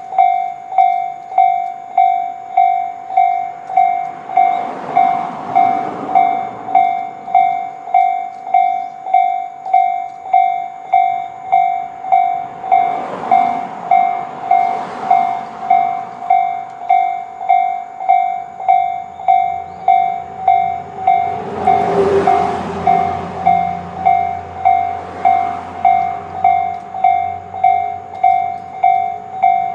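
Electronic railway level-crossing alarm of the Tobu 'sound C' slow-tempo type, dinging steadily at about three dings every two seconds. The running noise of a passing train swells and fades over it several times, loudest about two-thirds through.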